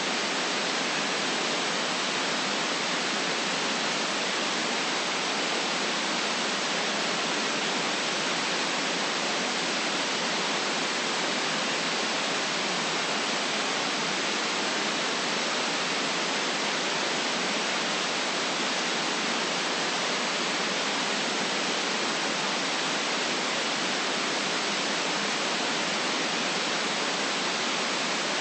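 Steady white noise: an even, unchanging hiss with little bass.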